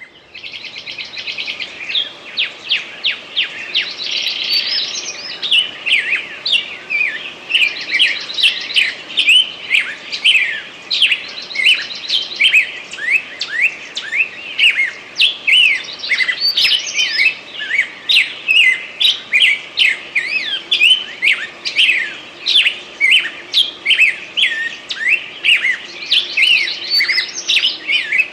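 Several songbirds singing at once in a summer forest: a dense run of quick chirps, several a second, mixed with short buzzy trills.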